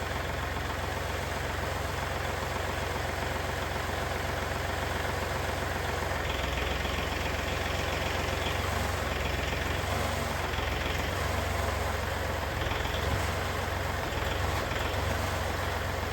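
Bandit 2550 stump grinder's engine running steadily. About six seconds in it grows a little louder and harsher, as the hydraulics take load while the cutting head is lowered.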